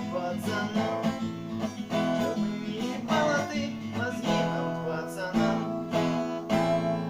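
Acoustic guitar strummed in chords with no singing, a chord struck near the end and left ringing.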